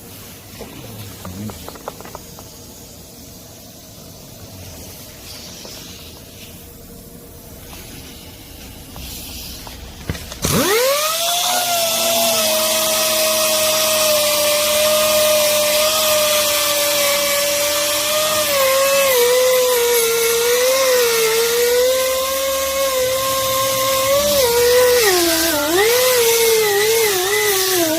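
7-inch lightweight pneumatic angle grinder spinning up about ten seconds in, its whine rising quickly and then holding a steady pitch. Later the pitch wavers and dips repeatedly as the disc is loaded against the work.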